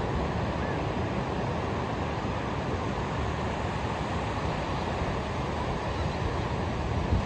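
Ocean surf on a beach, a steady rushing noise without distinct breaks.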